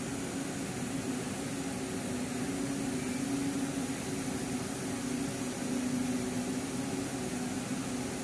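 Ring spinning frame running, heard as a steady mechanical hum of spinning-mill machinery: a constant low drone under an even hiss.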